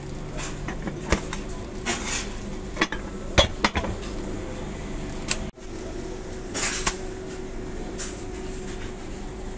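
Sharp knocks and clicks from a hand-operated metal burger patty press, mixed with short rustles of thin plastic sheet as patties are pressed and peeled off; the loudest knocks come in a quick cluster a little past the middle. A steady low hum runs underneath.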